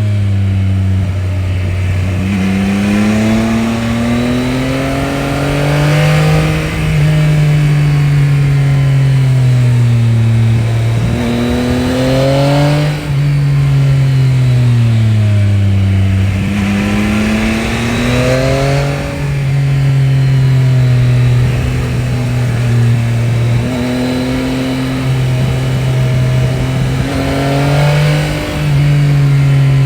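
Yamaha Tracer 9 GT's 890 cc CP3 inline three-cylinder engine on its stock exhaust, revving up and easing off in several long sweeps of pitch, with a few sharp breaks where the pitch suddenly drops.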